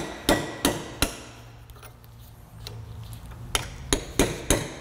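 Hammer striking a cold chisel driven into a rusted, split sleeve on a strut shaft, spreading it to free the seized sleeve. Three quick strikes, a pause of about two seconds, then four more.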